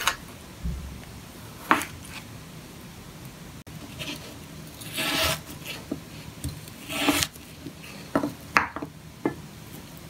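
Kitchen knife slicing raw chicken breast into cubes on a wooden cutting board: sharp knocks of the blade meeting the board, and two longer drawn cuts with a rasping scrape about halfway through.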